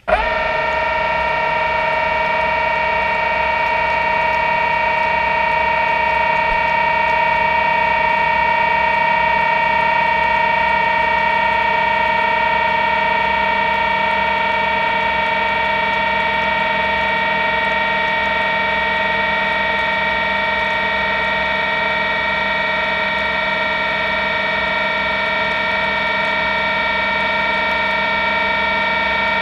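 Steady electric whine of several held tones that never change in pitch, heard through an underwater camera rig, most likely its own motors or electronics. It cuts in after a brief dropout at the very start.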